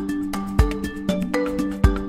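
Background music: a run of short, bright pitched notes over low bass drum thumps.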